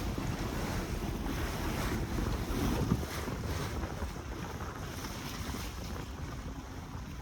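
Wind buffeting the microphone on a boat at sea, over a low rumble from the boat and the water against the hull. The sound rises slightly about three seconds in.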